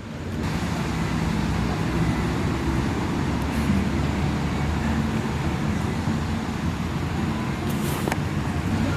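Steady car noise, an engine running with road and traffic hum, with a single short click near the end.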